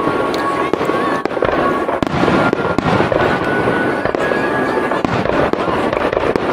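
Star mine fireworks barrage: a dense, continuous run of overlapping aerial shell bursts, booms and crackles with no break.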